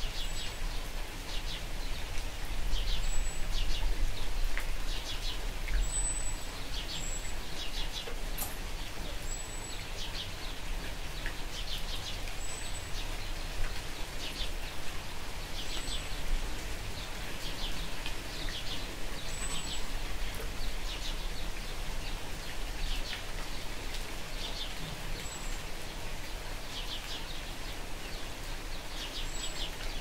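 Light rain falling steadily, with small birds chirping in short trills every second or two and an occasional brief, higher peep.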